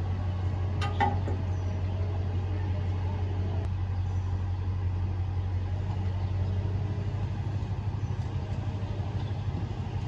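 Pickup truck engine idling steadily with a low, even hum, and a single light clank about a second in.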